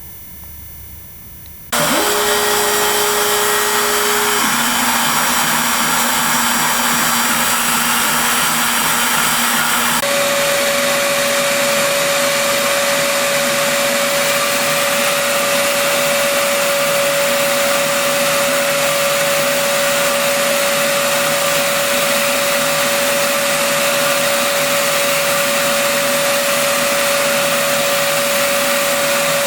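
Shapeoko CNC router's spindle motor switching on about two seconds in and running at high speed: loud, steady motor noise with a high whine. The whine steps up to a higher steady pitch about ten seconds in.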